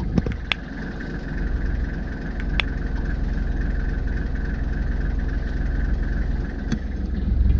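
Safari vehicle's engine idling steadily, with a few faint clicks.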